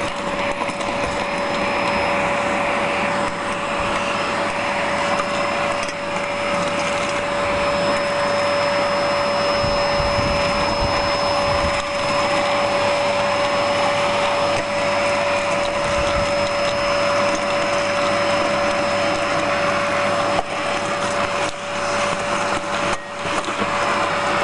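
Vacuum cleaner running steadily with a constant whine as its wand sucks leaves and small debris off garden railway track, with a few short clatters near the end.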